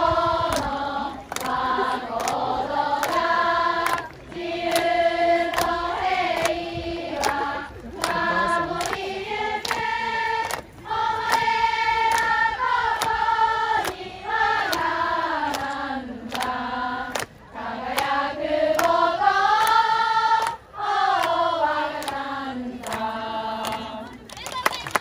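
A group of young women singing a song together in unison, long held notes in slow phrases with short breaths between them.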